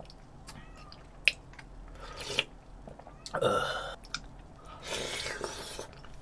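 Close-up eating sounds: a person slurping and chewing spoonfuls of stew and rice, with wet mouth clicks and smacks. The loudest is a noisy burst about three and a half seconds in, followed by more chewing near the end.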